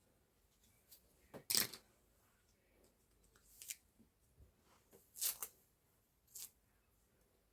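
A few short, sharp rustling and clicking sounds of something being handled, the loudest about one and a half seconds in.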